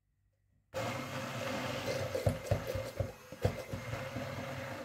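Immersion (stick) blender switching on about a second in and running as it purées peas in their cooking water in a plastic beaker, with several sharp knocks in the middle.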